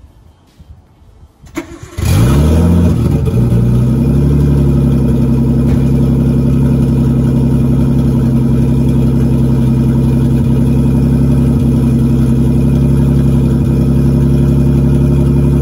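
Nissan Skyline's engine catching about two seconds in on a cold start after sitting over a week. The revs flare up briefly, then it settles into a steady, loud idle.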